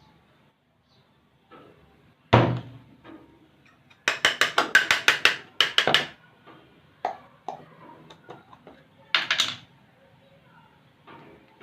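Objects being handled: a single thump, then a quick run of about a dozen sharp clicks or taps over two seconds, scattered softer knocks, and a brief noisy burst near the end.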